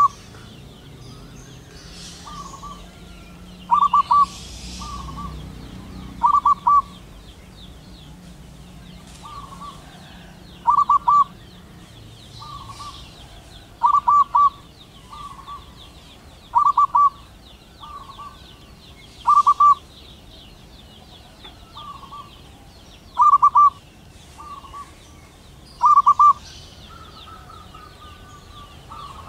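Male zebra dove (perkutut) singing its staccato cooing song: a short, stuttering phrase repeated every few seconds, louder phrases alternating with softer ones. A faint high chirring runs underneath.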